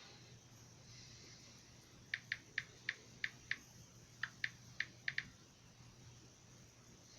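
Typing on a computer keyboard: eleven crisp key clicks in two short runs, starting about two seconds in, over a faint steady hum.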